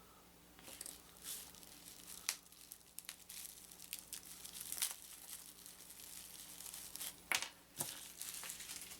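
Plastic packaging crinkling and rustling in irregular handfuls while a plastic miniature is unwrapped, with two sharp clicks near the end.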